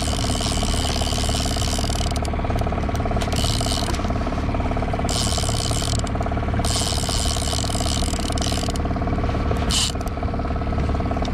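Okuma Magda Pro line-counter trolling reel ratcheting in about five stop-and-start bursts as its handle is worked, over the steady hum of the boat's engine.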